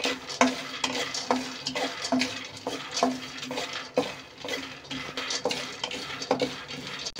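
Wooden spatula stirring peanuts roasting in an aluminium kadhai: the nuts rattle and scrape across the metal pan in a steady stream of irregular clacks, a few a second.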